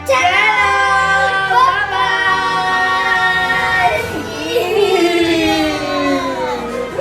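A child's voice singing long, gliding notes without words, loud over background music.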